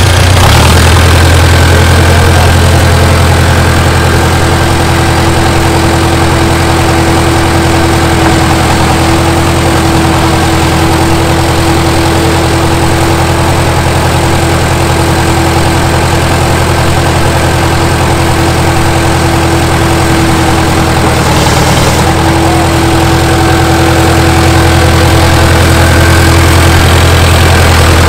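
Bulldozer's diesel engine running loud and steady with a deep drone, its pitch wavering briefly about three quarters of the way through.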